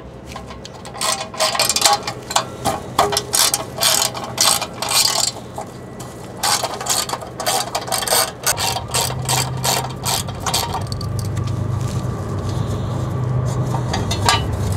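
Hand ratchet clicking in quick bursts as it backs out the bolts holding a shield, with a short pause about six seconds in. A low steady hum comes in about halfway through.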